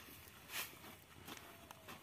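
Faint rustle of loose paddy grain scooped off a tarp with a woven bamboo winnowing basket, with one louder swish about half a second in.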